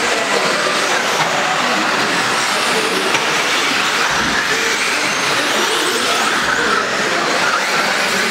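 Several 1/10-scale electric off-road RC buggies with modified brushless motors racing: a steady, dense whir of motor and drivetrain whine, with whining tones that rise and fall as the drivers work the throttle.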